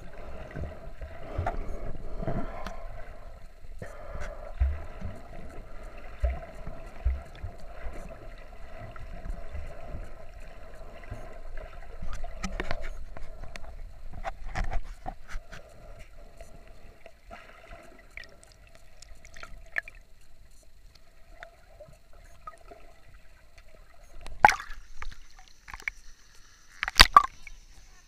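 Muffled underwater water noise around a submerged camera: gurgling and sloshing with many small knocks and a faint steady tone. Near the end two loud sharp splashes come as the camera breaks the surface.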